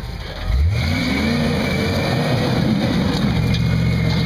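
Rock buggy's engine revving up sharply about half a second in, then running hard under load as the buggy crawls up a rock ledge.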